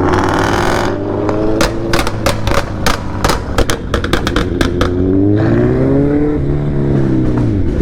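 Ford Mustang GT's V8 with a de-cat exhaust crackling and popping: a rapid string of about a dozen sharp cracks over a few seconds, over a steady engine note. Near the end the engine note rises and falls again as it revs.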